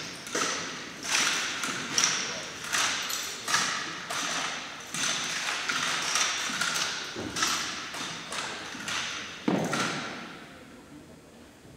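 A drill team's rifles being slapped, snapped and struck in unison: a steady run of sharp knocks, about one every half to three-quarters of a second, echoing in a gymnasium. A last strong knock comes near the end, and the echo then fades.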